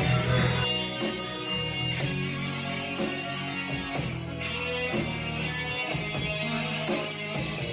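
Live rock band playing an instrumental passage: electric guitars and bass guitar over drums, with a steady beat of about two hits a second.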